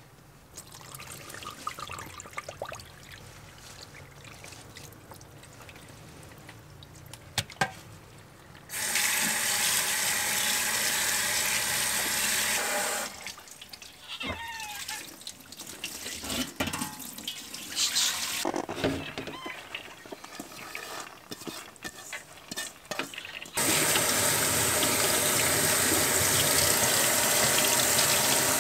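Hands swishing and splashing soaked split wheat in a bowl of water in a stainless steel sink. About 9 s in, a kitchen tap runs in a steady stream for a few seconds. From about 23 s it runs steadily again, pouring through wheat held in a metal pan.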